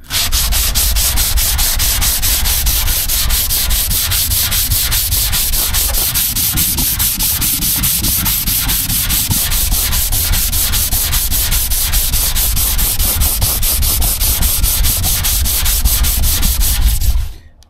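Power sander with an 80-grit disc running steadily against the car's trunk. It starts abruptly and stops abruptly just before the end.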